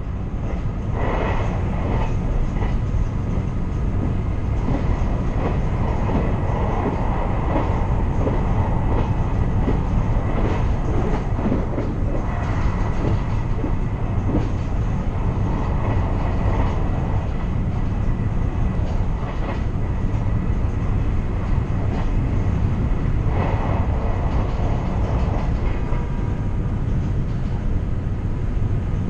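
Train running along the rails: a steady low rumble of wheels and running gear with light clatter over it.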